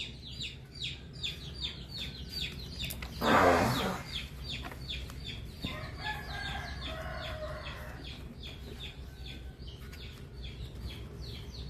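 Chickens: short high peeps repeated several times a second, with a louder, harsher call about three seconds in.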